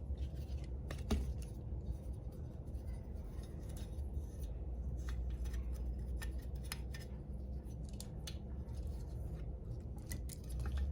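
Small scattered clicks and rubbing of the wing mirror's wiring and bracket being handled as the wires are threaded through, over a steady low hum.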